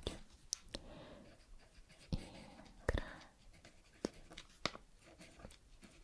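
Ballpoint pen writing on paper in a questionnaire booklet, soft scratching strokes broken by several sharp clicks.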